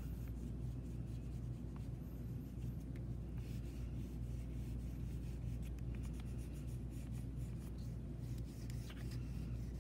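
White oil pastel stick scratching and rubbing on black construction paper in short, quick strokes as the whites of the eyes are coloured in, over a steady low hum.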